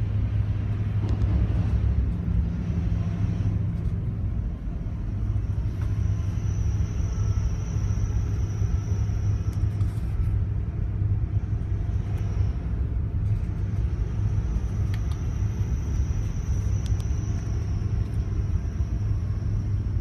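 Steady low machinery rumble and hum aboard a container ship alongside at a container terminal, with a faint high whine that comes in twice, in the middle and near the end.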